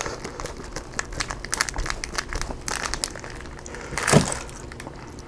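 Close crinkling and crackling of dry roasted seaweed squares being handled and eaten: many quick irregular clicks, with one short louder sound falling in pitch about four seconds in.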